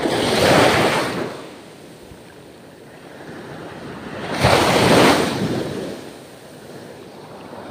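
Small waves washing in on the beach, the surf swelling twice about four seconds apart, with some wind noise on the microphone.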